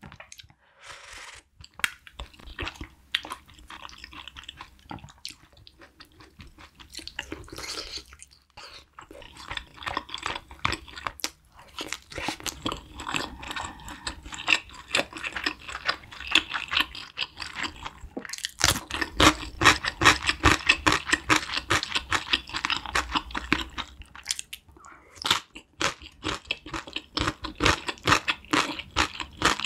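Close-miked wet chewing of spicy braised chicken and broth-soaked glass noodles, a dense run of quick smacking clicks, with a short slurp from the spoon about a second in.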